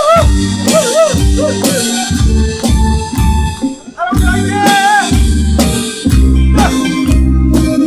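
An elderly man singing into a microphone, amplified through a PA, over a loud karaoke backing track with a steady beat; his wavering sung phrases come at the start and again about five seconds in, with the band track carrying on between them.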